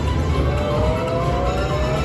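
Aristocrat slot machine playing its bonus-feature sound effects and music: an electronic tone glides slowly upward from about half a second in, over a steady low casino rumble.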